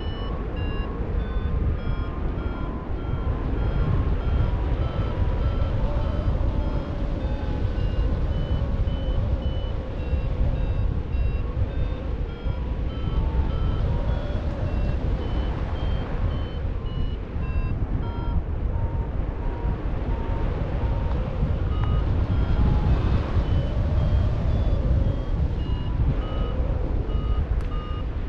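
Paragliding variometer beeping in short repeated tones, about two a second, their pitch stepping up and down as the climb rate changes; the beeping is the instrument's sign that the glider is climbing in lift. Steady wind rushes over the microphone underneath.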